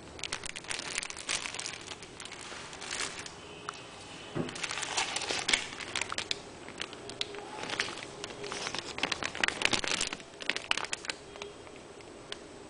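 Clear plastic bags of model-kit parts sprues crinkling as they are handled, in several bursts with small clicks.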